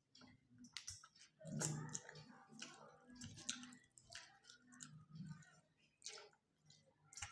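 Faint chewing and wet mouth clicks of people eating rice and curry with their hands, with light clicks of fingers against steel plates, as a string of short irregular clicks and soft smacks.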